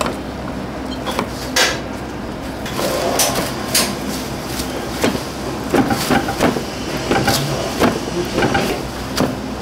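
Hand-breading a large minced-meat cutlet: rustling and crunching of panko breadcrumbs pressed on by gloved hands, with irregular light clicks and knocks, over a steady low hum.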